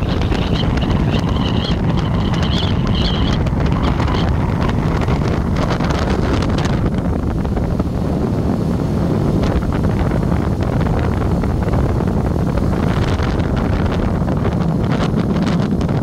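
Wind rushing over the microphone of a moving vehicle, over a steady low rumble of road and engine. A faint wavering high tone runs through the first few seconds.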